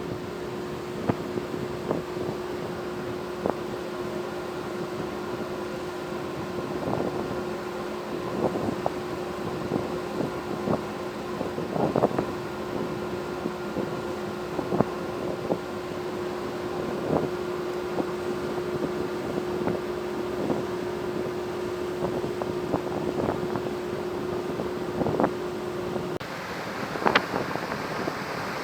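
Cargo ship's engine drone, a steady hum with wind on the microphone and scattered sharp clicks and knocks. Near the end the hum stops and a louder hiss of wind and water takes over.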